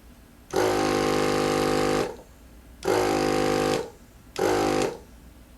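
Small electric tire inflator's motor running in three short on-off bursts, a steady buzz each time, the longest first: an inner tube in a scooter tire getting its first air a little at a time.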